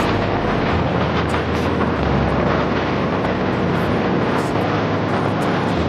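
Sport motorcycle running at road speed, its engine under a steady rush of wind noise on the rider's microphone.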